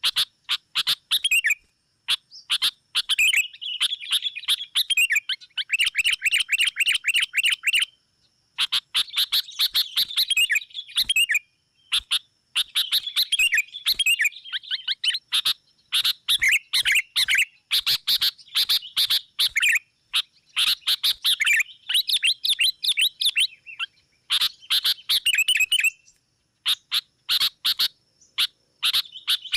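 Sooty-headed bulbuls (kutilang) chattering excitedly in rapid bursts of calls with short pauses between them: the agitated, quarrelsome calling used as a decoy call to draw rival bulbuls in.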